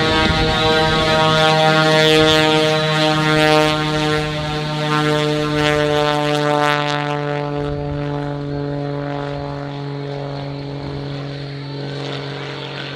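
An aerobatic stunt plane's piston engine and propeller, a steady buzzing drone of many tones that sinks slowly in pitch and fades as the plane moves away, the hiss in the highs dropping off about halfway through.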